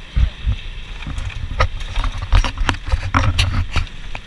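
A bumpy vehicle ride: irregular clattering knocks come thick and fast over uneven low thumps and rumble.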